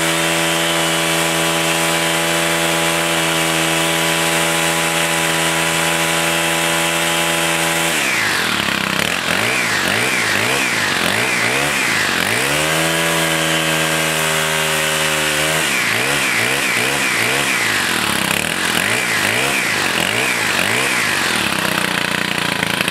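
Stihl FS110 trimmer's 4-Mix four-stroke engine running just after a cold start at −4 °F. It holds a steady speed at first, then from about eight seconds in it is revved up and down over and over, with a few seconds at a steady speed in the middle.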